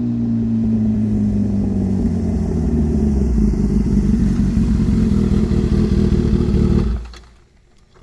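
Kawasaki Ninja ZX-10R's inline-four engine running steadily through an SC-Project aftermarket exhaust, with a deep rumble, until the sound cuts off abruptly about seven seconds in.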